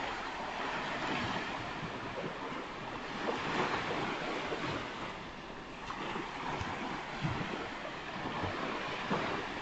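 Ocean surf washing onto a beach: a steady rush of breaking waves that swells about three seconds in, eases a little past the middle, then builds again.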